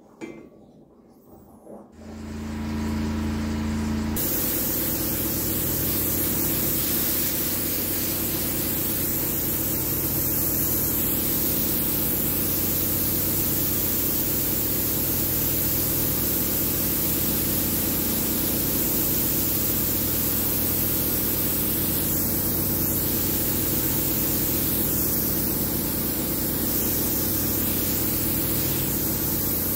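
Spray gun hissing steadily as a chrome-effect nickel-chrome coating is sprayed onto a steel part, over the steady hum of a motor. The hum starts about two seconds in and the hiss about two seconds later.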